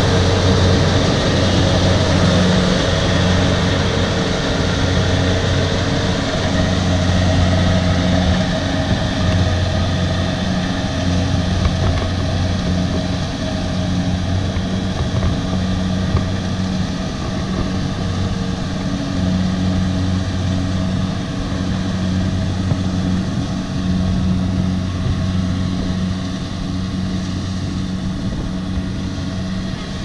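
Kubota DC70 rice combine harvester's diesel engine running steadily under load with a deep hum as it harvests, slowly growing fainter as the machine moves away.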